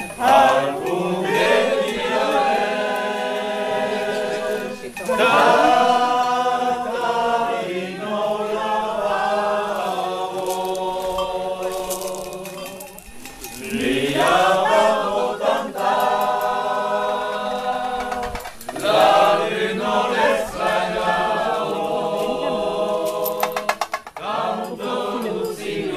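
A mixed group of men's and women's voices singing an Occitan traditional song a cappella, in long phrases with short breaks between them.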